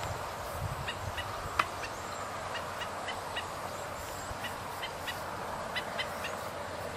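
Black-necked stilt giving repeated short, sharp yipping calls, about two a second at uneven intervals: the adult male's scolding alarm at an intruder near its young. A steady hiss of background noise lies underneath.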